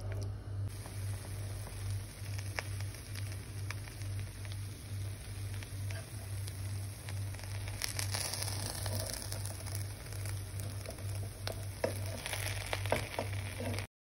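Chicken stock and oil bubbling and sizzling in a cooking pot, with a spatula clicking and scraping against the pot now and then, over a low hum that pulses two or three times a second. The sound cuts off suddenly near the end.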